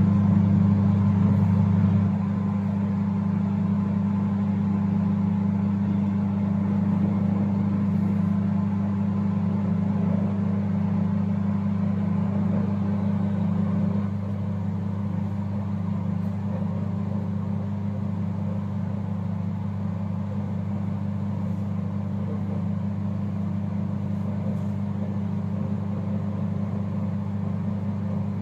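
IFB 30FRC2 convection microwave oven running with a steady electrical hum while it preheats to 200 °C. The hum drops a little about two seconds in and again about halfway through.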